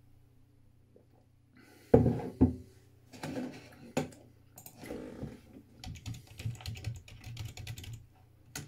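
Typing on a computer keyboard in irregular runs of clicks, after a thump about two seconds in.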